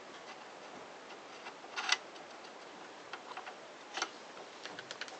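Light clicks and taps of small metal parts and tools being handled during reassembly of a circular saw, with a short rattle about two seconds in and a sharper click about four seconds in.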